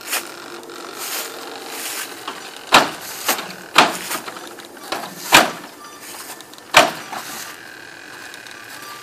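Animatronic coffin prop run by a prop controller, going through its routine: a series of sharp, loud bangs at uneven intervals, the strongest about three, four, five and a half and seven seconds in, over a steady mechanical background.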